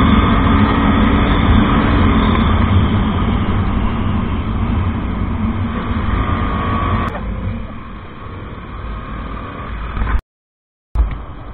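Husqvarna Svartpilen 250's single-cylinder engine running while riding along a road, heard from a camera mounted on the bike. The sound drops somewhat about seven seconds in and cuts out completely for under a second near the end.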